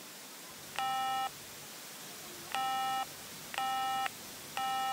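Four short electronic beeps from the audiologist's computer, each about half a second long and all at the same pitch, with uneven gaps between them: test tones during a cochlear implant switch-on.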